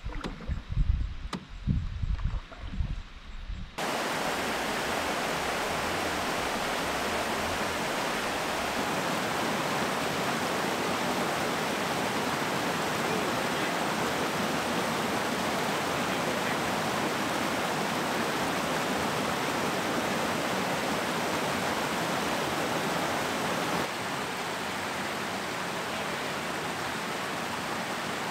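A few seconds of knocks and low thumps from a canoe on the water, then, cutting in suddenly, the steady rush of a waterfall cascading over rock ledges. The rush drops a little softer near the end.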